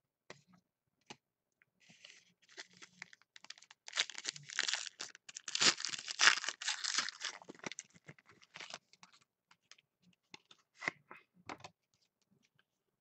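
A trading card pack's wrapper being slit with a blade and torn open, crinkling and crackling most densely from about four to seven seconds in. It ends with a few sharp rustles as the cards are pulled out.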